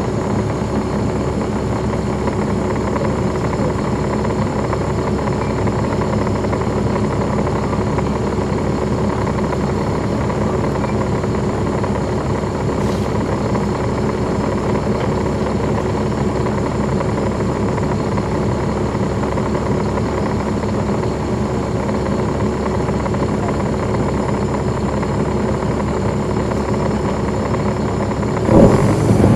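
Caterpillar C13 ACERT diesel engine of a NABI 40-SFW transit bus, heard from on board, running at a steady speed with its engine cooling fans off. About a second before the end it suddenly gets louder, with a deeper note.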